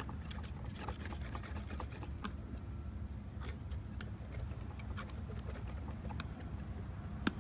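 Paint being worked by hand: dry rubbing and scraping with scattered light ticks, and one sharper click near the end, over a steady low rumble.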